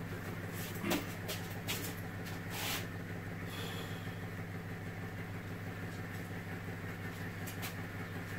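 Knocks, clicks and a brief scrape of a Triton Mk 3 saw bench's metal table top being handled and slid, mostly in the first three seconds and once more near the end, over a steady low hum.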